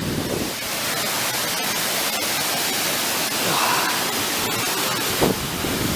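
Loud, steady rushing of a waterfall close to the microphone, an even hiss with no breaks.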